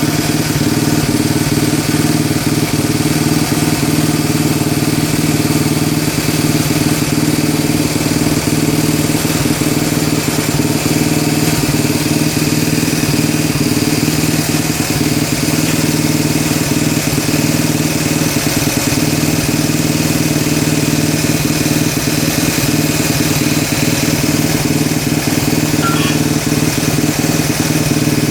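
Honda Monkey minibike's small four-stroke single-cylinder engine idling steadily, just after starting. It carries the loud abnormal mechanical noise that new cam chain parts have not cured.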